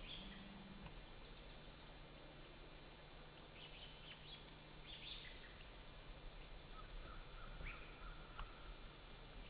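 Faint woodland ambience with a few short, high bird chirps in the middle, and a thin faint call with a couple of ticks near the end.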